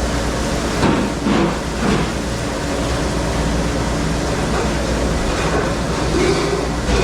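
Dishwasher running: a steady low hum and rushing noise, with a few short clatters about a second in.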